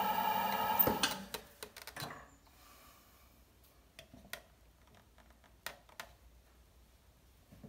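Electric potter's wheel humming steadily, stopping about a second in; then scattered light clicks and taps from handling a trimming tool and leather-hard clay.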